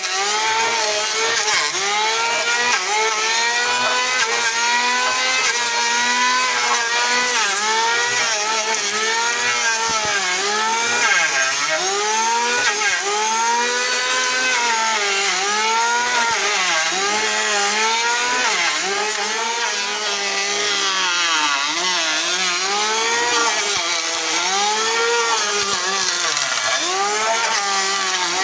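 Electric hand planer running continuously, its motor whine dipping in pitch and recovering again and again, about every one to two seconds, as the cutter head is loaded by the wood and then freed.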